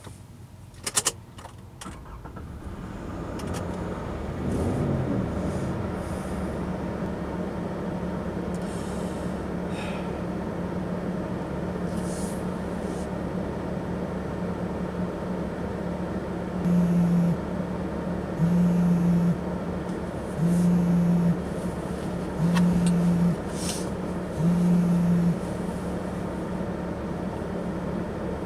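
A few clicks, then a steady engine-like hum that builds over the first few seconds. From about halfway through, a phone buzzes on vibrate five times, about two seconds apart, as an incoming call.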